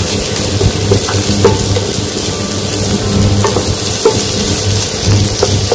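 Shredded cabbage and sliced onions sizzling in hot oil in a nonstick pan, stirred with a wooden spatula, with a few light scrapes. A low hum comes and goes underneath.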